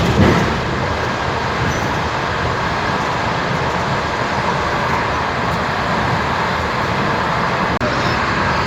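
Steady running noise of an electric commuter train under way, heard from inside the carriage: a constant rushing rumble, broken for an instant near the end.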